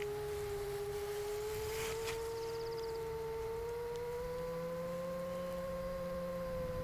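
Steady motor and propeller hum of an 8-inch FPV quadcopter on 7-inch props in cruising flight, one even tone that rises a little in pitch midway through.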